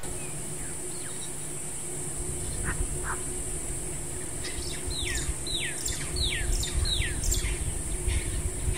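A bird calling in a run of about five whistled notes, each falling in pitch, roughly two a second, through the middle stretch. A steady high-pitched hiss and a low rumble of outdoor ambience lie underneath.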